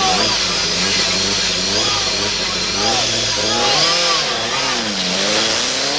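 Lancia Delta S4's supercharged and turbocharged four-cylinder engine revving in repeated rises and falls at the stage start. From about five seconds in it gives one long rising pull as the car sets off.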